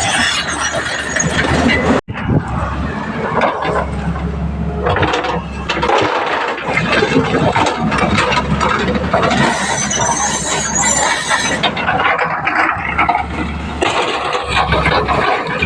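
Excavator working at a dumper loading: its diesel engine runs with a steady low drone, under irregular metallic clatter and squeals from the machine, with a brief break about two seconds in.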